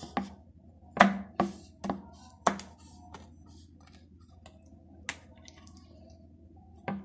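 Knife blade knocking on a wooden board while cutting a freshly rolled slab of peanut-sesame jaggery chikki: about five sharp knocks in the first two and a half seconds, then a few fainter ones.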